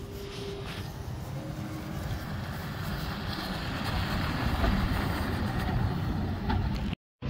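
A bus approaching, its engine and road noise growing steadily louder, then cut off abruptly near the end.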